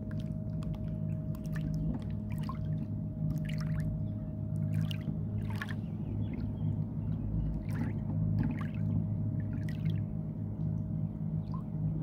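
Donut boat's motor running with a steady low hum, while water laps and splashes against the hull in many short splashes.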